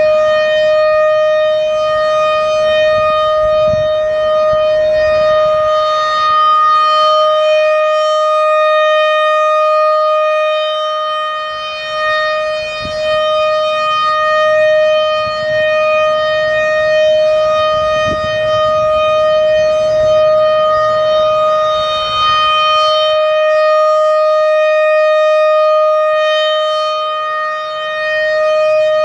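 American Signal RM-130 rotating mechanical warning siren sounding its steady alert tone, loud and close, holding one pitch throughout. Its loudness dips briefly a few times, around the middle and near the end, as the rotating horn turns away.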